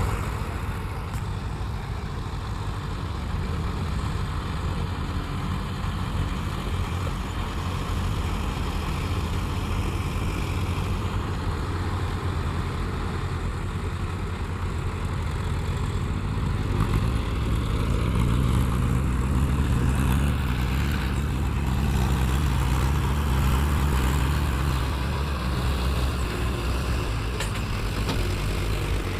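Heavy vehicle engine running steadily, with the low engine sound growing louder about halfway through, as if under more load, then easing a little near the end.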